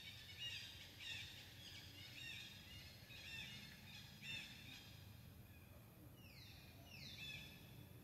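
Faint birdsong in forest: a run of short, repeated arched notes for about the first half, then two quick downward-sliding calls near the end, over a low steady background hum.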